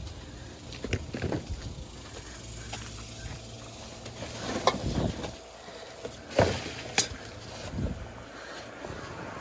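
Plastic trash bags rustling and crinkling as bags stuffed with clothes are pushed and handled, with a few sharp clicks and knocks, the sharpest about seven seconds in.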